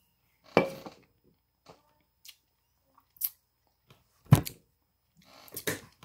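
Aluminium soda can set down on a table with a sharp clunk about half a second in, followed by a few small clicks and a heavy low thump a little past four seconds.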